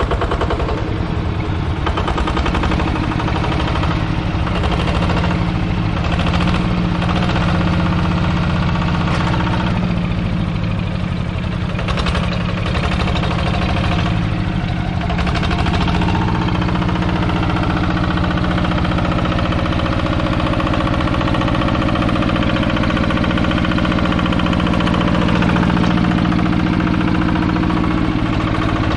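Yanmar TF85 single-cylinder direct-injection diesel engine of a walk-behind hand tractor running steadily with the throttle opened up.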